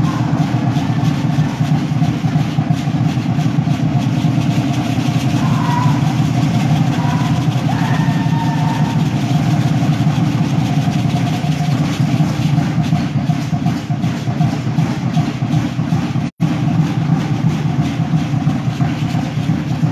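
Fast, steady pounding of Aztec dance drums, dense and loud, with a continuous rattling over it. The audio cuts out for an instant about sixteen seconds in.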